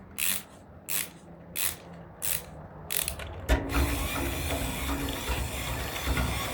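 Wind-up key of a Disney Store Lenny toy being turned, its ratchet giving about six short rasping clicks evenly spaced in the first half. After that a steady rush of handling and background noise takes over.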